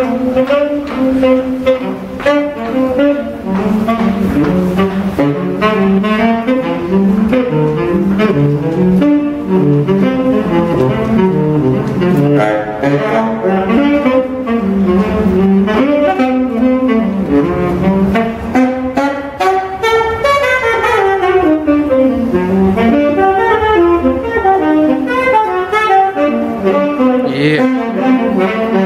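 Solo tenor saxophone playing jazz: quick, continuous runs of notes sweeping up and down, in a tiled subway passageway.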